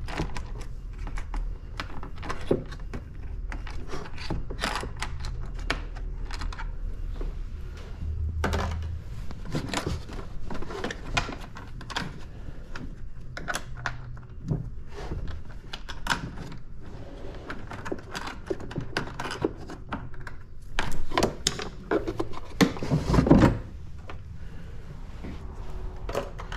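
Irregular clicks, taps and knocks of hands and a screwdriver working on a jet ski's plastic body panel and fishing loose bolts out from inside it. A louder cluster of knocks comes near the end.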